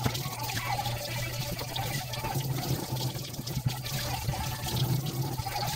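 Water running from a plastic tap into a stainless steel sink, splashing irregularly as hands rinse and scrub under the stream with a sponge. A steady low hum sits underneath.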